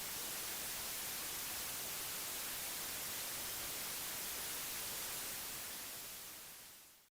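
Television static, a steady hiss strongest in the high pitches, fading out near the end and cutting off to silence. It stands for the station's signal going off the air.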